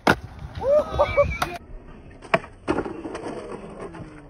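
Skateboard on concrete: a sharp clack of the board hitting the ground just after the start, two more clacks about 1.5 and 2.3 seconds in, then about half a second of rough scraping.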